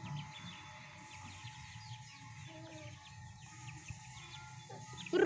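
Faint, rapid chirping of small birds over a steady low background hum.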